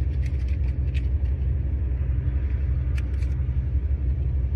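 A vehicle engine idling steadily as a low, even rumble, with a few light clicks of handling about a second in and again near three seconds.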